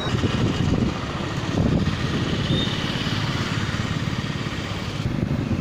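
Motorcycle riding along a road, its engine running steadily under heavy wind rumble on the microphone.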